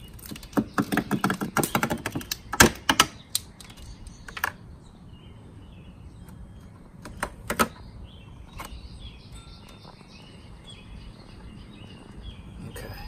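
A 2016 Subaru BRZ headlight's plastic lens being pried off its housing, its clips and oven-softened sealant letting go in rapid clicking and cracking for the first few seconds. After that come a few single sharp snaps, two of them close together near the middle.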